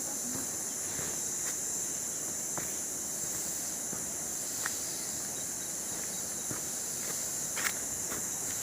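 Steady high-pitched drone of forest insects, with a few light footsteps or snaps scattered through it.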